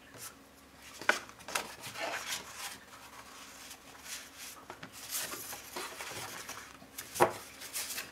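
Stiff watercolour-paper sheets being handled and shuffled, rustling, with a few sharp taps and clacks. The loudest come about a second in and about seven seconds in.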